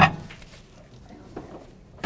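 A clunk at the very start, then the microwave oven door banging shut right at the end.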